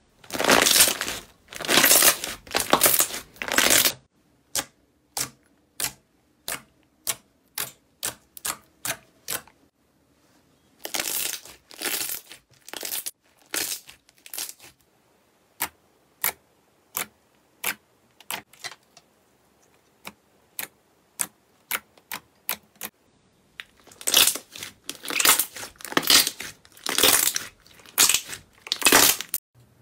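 Hands squeezing and kneading slime: stretches of sticky, crackling squelching alternate with runs of sharp single pops and clicks, several a second.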